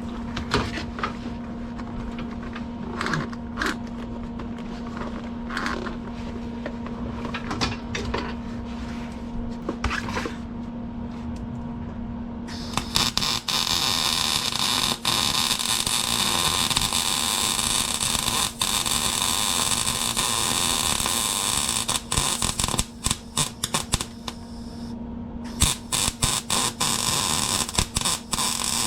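A low steady hum with a few clicks, then about twelve seconds in a MIG welding arc starts abruptly and runs as a dense, steady hiss. Near the end it stops and restarts several times in short bursts.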